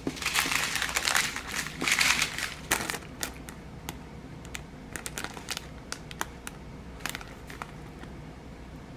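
Plastic packaging crinkling as it is handled for the first few seconds, then scattered light clicks and taps.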